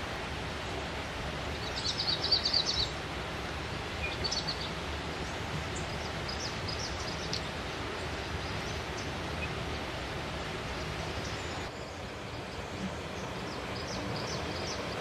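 Steady rushing of flowing stream water, with a quick burst of high bird chirps about two seconds in and fainter chirps scattered later.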